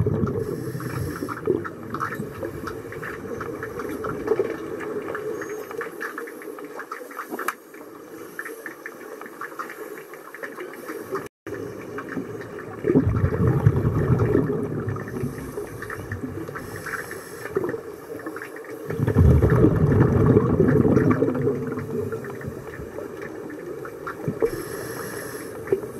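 Underwater pool sound picked up through a camera housing: a steady crackle of scuba divers' bubbles, with two louder rumbling bursts of exhaled bubbles about halfway and two-thirds of the way through.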